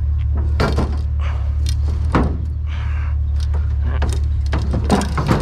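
Pickup truck engine idling with a steady low hum, under irregular clatters and knocks of heavy scrap being handled.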